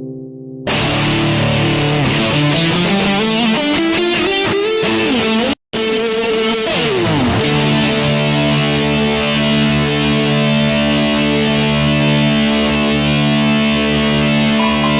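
Korg Pa5X arranger keyboard playing a distorted electric guitar voice. Notes bend upward for a few seconds, cut out very briefly about five and a half seconds in, slide back down, then settle into held chords.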